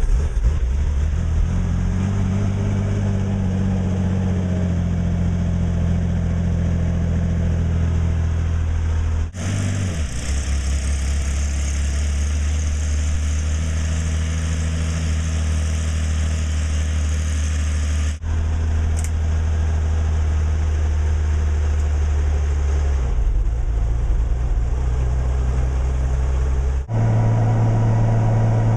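Bell 47 helicopter's piston engine running steadily after start-up, warming up toward a hover power check. The hum shifts abruptly three times, and the engine tone is higher near the end as the revs come up.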